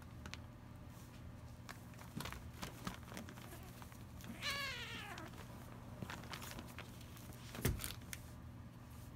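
Young kittens play-fighting on newspaper: scattered rustling and scratching, with one kitten giving a single meow that falls in pitch about halfway through. A sharp thump near the end is the loudest sound.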